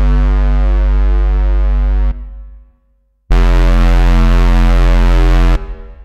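u-he Diva software synthesizer playing a held low bass note rich in overtones. It cuts off about two seconds in and fades away, and a second long low note starts about a second later, is held for about two seconds, then fades.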